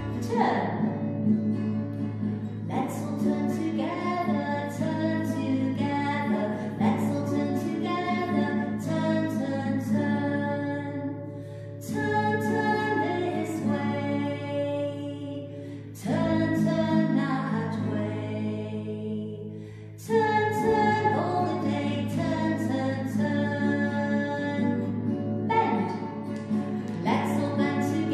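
A children's action song: a woman singing to a strummed acoustic guitar, with brief breaks between phrases.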